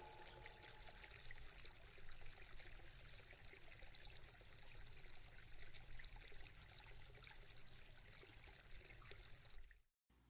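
Faint, steady trickle of running water, like hot-spring water flowing into a bath, that cuts off suddenly near the end.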